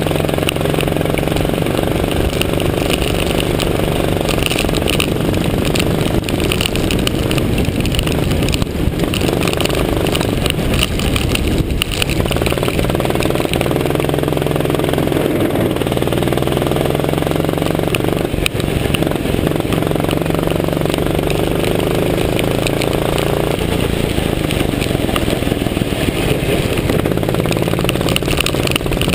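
Go-kart engine running flat out around a wet track, its pitch repeatedly climbing and dropping as the throttle is opened and lifted through the corners, over a steady hiss of wind and water spray.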